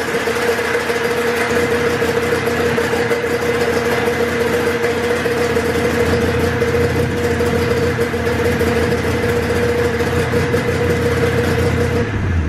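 Polaris Indy XLT three-cylinder two-stroke snowmobile engine idling high and steady at an unchanging pitch, freshly revived and running on fuel after sitting for years. Shortly before the end it cuts out and winds down.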